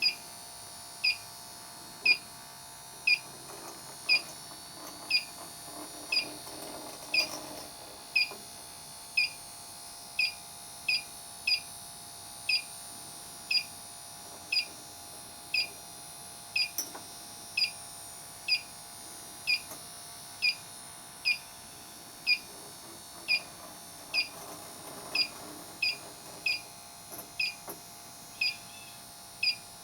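Inficon Tek Mate refrigerant leak detector beeping at its idle rate, a short high beep about once a second, the beeps quickening near the end as it responds to what may be a slight trace of refrigerant at the coil. A faint steady hum runs underneath.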